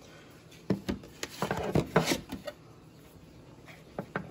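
A cardboard sleeve is slid off a metal tin box and the tin is handled on a table. A knock about a second in is followed by a short run of rubbing, scraping and clicking, then a few light taps near the end.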